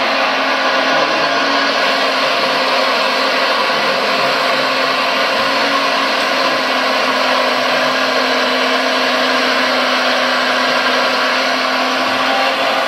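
Premacon Liebherr R956 RC excavator working, its onboard sound module playing a steady diesel-engine drone over a motor-like whir while the boom and bucket move.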